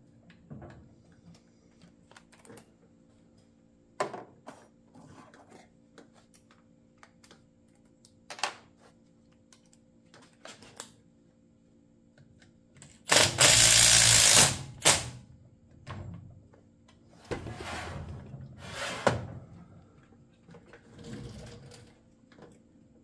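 Light clicks and knocks of parts and tools being handled, then a cordless driver whirring in two bursts of a second or two each, driving screws into a chainsaw, with a fainter short run near the end.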